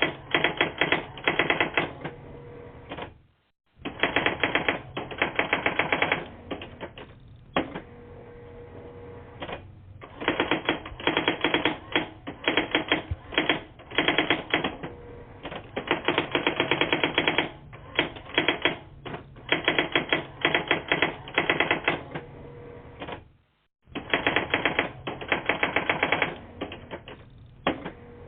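Typewriter keys clattering in rapid runs of about one to two seconds with short pauses between, heard over a telephone voicemail line. The audio drops out completely twice, about three seconds in and again about twenty-three seconds in.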